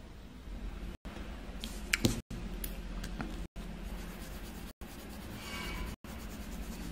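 Paper card being handled and slid on a cloth-covered table, with a few sharp taps about two seconds in and a short squeak of fingers rubbing the card later on. The audio cuts out briefly several times.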